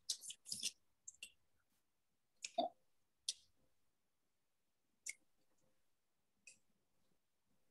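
A few short, scattered clicks and rustles from hands handling a folded paper flower close to the microphone, with dead silence between them, as in a video call's noise-gated audio.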